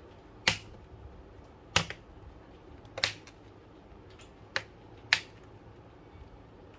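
A Lenovo Legion 5 laptop's bottom cover being pressed back into place, snapping in with five sharp clicks about a second apart.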